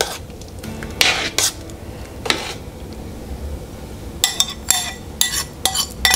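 Metal spoon stirring in a stainless steel soup pot and clinking against the cookware: a few separate clinks in the first half, then a quick run of sharp, ringing clinks in the last two seconds.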